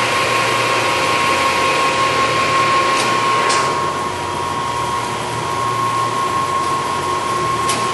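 Harrison 21-inch by 64-inch centre lathe running with its spindle at 80 RPM: a steady whir from the main motor and headstock gearing, with a constant high tone over it. A couple of faint clicks sound about three seconds in and near the end.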